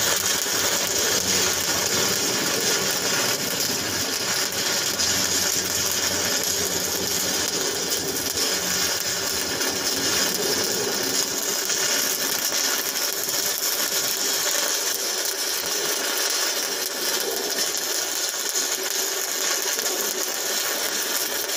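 Stick-welding (shielded metal arc) arc crackling steadily and without a break as a root pass is run on a steel joint.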